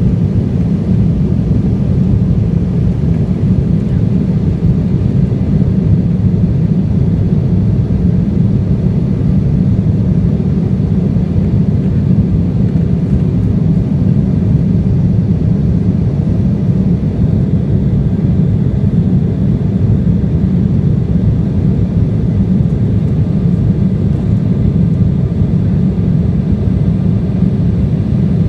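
Steady, loud cabin rumble of an Embraer 170 airliner climbing out after takeoff: its GE CF34 turbofans at climb power and the rush of air past the fuselage, deep and even, with a faint steady whine above it.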